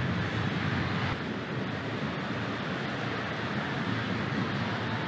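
Football stadium crowd noise: a steady din from the fans in the stands.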